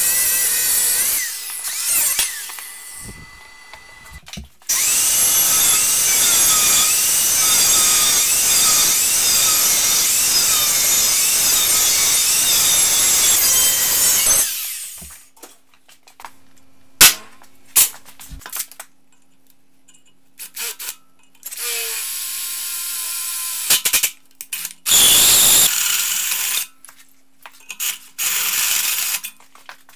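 A Milwaukee angle grinder with an abrasive cut-off wheel cuts through steel pipe and steel plate, its whine wavering as the wheel bites. It stops about halfway through. After that a drill-press motor hums steadily, with a few sharp clicks and short bursts of a hole saw cutting into steel plate.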